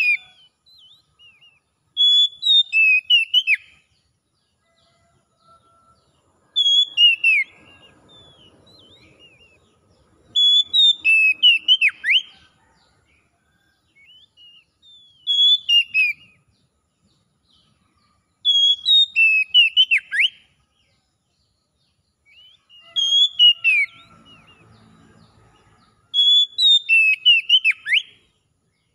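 Oriental magpie-robin (kacer) singing in short bursts of clear whistled notes, about one every three to four seconds. Each burst is a quick run of rising and falling notes ending in sharp downward sweeps. This is the wild-style 'ngalas' song played as therapy to bring a kacer that has gone off song back into full song.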